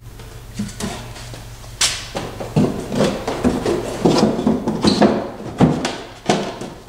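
A plywood platform with 2x4 legs being worked into a UTV's rear seat well, making a string of irregular wooden knocks and scrapes.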